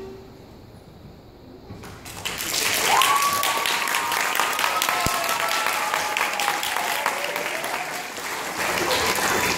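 After a brief hush, a theatre audience starts applauding about two seconds in and keeps clapping steadily, with a long high cheer over the clapping.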